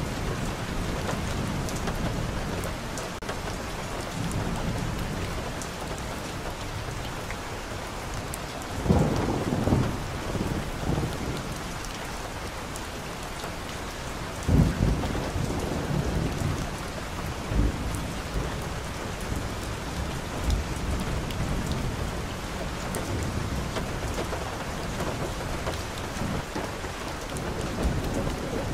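Steady rain falling on a town street and on wet leaves, a continuous even hiss. A few short low rumbles rise above it, the loudest about nine and fifteen seconds in.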